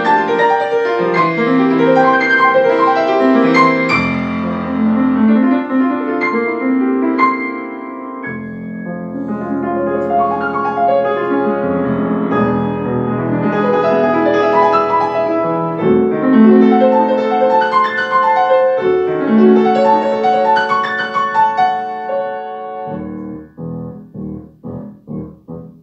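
Solo grand piano playing a classical concert piece: fast runs of notes over held bass chords, breaking near the end into a string of short, detached chords.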